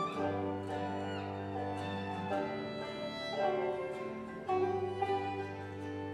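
Acoustic folk ensemble playing instrumentally: bowed violin over low held bass clarinet notes, with banjo and acoustic guitar picking. The low held notes drop out for about two seconds in the middle and come back.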